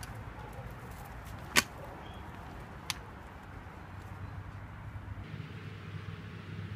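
Outdoor background noise with one sharp click about one and a half seconds in and a fainter click about a second later; a low hum comes up in the second half.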